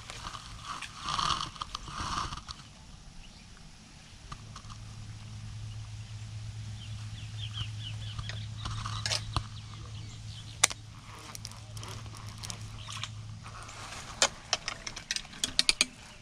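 Dry brush and twigs crackling and snapping as someone pushes through dense undergrowth, with scattered sharp cracks and a quick cluster of them near the end.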